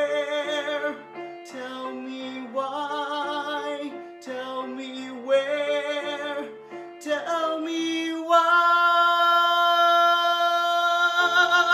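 A man singing over instrumental accompaniment, his phrases wavering with vibrato, then from about eight seconds in holding one long, loud high note.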